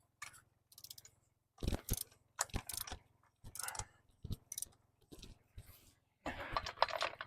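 Short clusters of metal clicking and clanking, about once a second: steel parts and pins being handled and fitted while a ripper claw is fixed onto a mini excavator's coupler.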